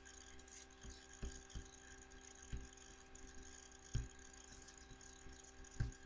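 Quiet room tone with a steady electrical hum, broken by about five soft, low thumps from the mouse being handled on the desk.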